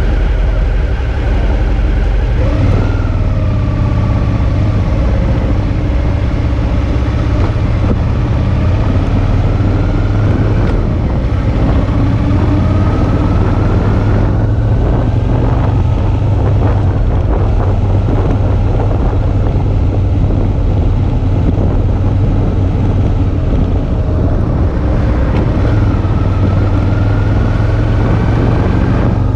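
Suzuki V-Strom 650's 645 cc V-twin engine running under way, its pitch climbing several times as the bike accelerates, with wind noise on the microphone.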